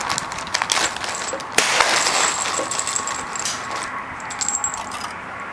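Loose rifle cartridges and small metal parts being handled, clinking and clicking lightly, with a sharper click about a second and a half in followed by a faint metallic ring.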